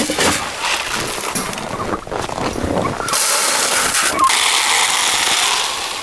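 Crunching and rustling with scattered sharp crackles: grain scooped from a plastic bucket and footsteps crunching in snow. It turns to a denser, steadier hiss about halfway through.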